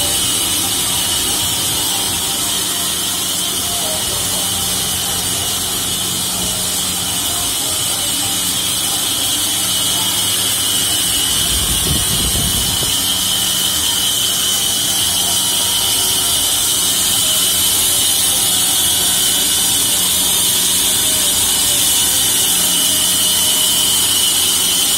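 24-inch woodworking band saw running: a steady electric-motor hum with a constant hiss over it, and a brief low rumble about halfway through.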